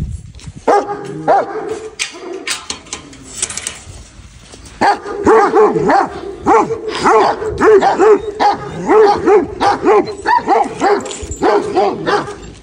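Large guard dogs barking: a few scattered barks at first, then about five seconds in a fast, loud run of repeated barks, about three a second.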